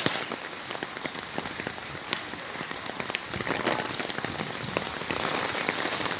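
Heavy rain falling on standing floodwater, a steady dense pattering of drops splashing on the water's surface.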